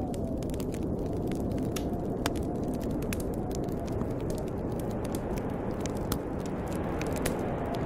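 Wood fire crackling with frequent sharp pops over the steady low rush of snowstorm wind, with a faint whistle in the wind that slowly wavers in pitch.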